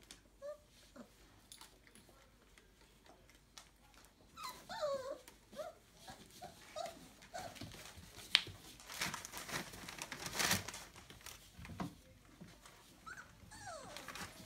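27-day-old Entlebucher puppies whimpering and squeaking in short high, sliding cries, with some rustling and a sharp click about halfway through.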